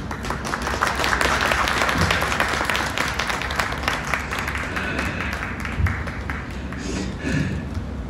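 Audience applauding, building about a second in and thinning out over the last couple of seconds.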